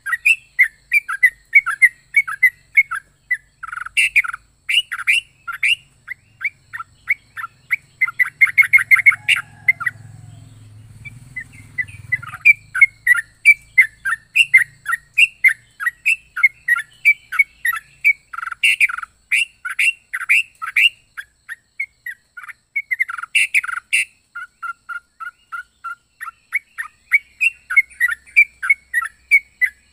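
Yellow-vented bulbul (trucuk) singing a long run of short, quick chirping notes, several a second, with a very fast trill about nine seconds in and a short pause just after.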